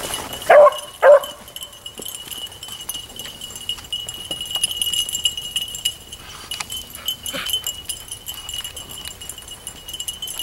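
Beagle giving two short, loud barks about half a second apart, near the start, as the hounds work a scent line.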